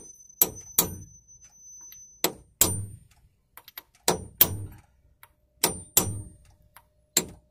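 Hammer striking a brass drift block to knock the tab of a locking washer over against the retaining bolt of a Turner gearbox's output flange. The blows are sharp metallic knocks, mostly in pairs about every one and a half seconds, each with a short ring.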